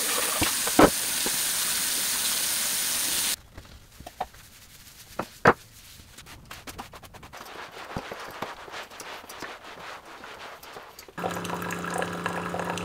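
Kitchen tap running into the sink for about three seconds, then cut off. Light clicks and knocks follow as things are handled on the counter. Near the end, a single-serve pod coffee maker starts a steady pumping hum as it brews.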